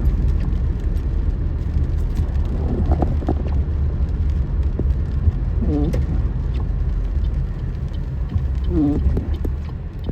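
Steady low rumble with a few short pitched sounds that rise and fall, about every three seconds.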